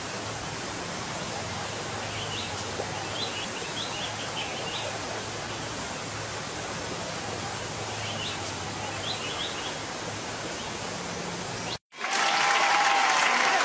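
Steady hiss with a low hum and two short runs of quick, high bird chirps. Near the end it cuts abruptly to loud crowd applause.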